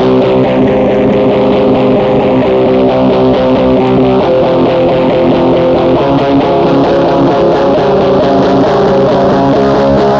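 Loud, dense raw black metal recording: a droning wall of held, distorted tones with hiss, the chord changing about four seconds in.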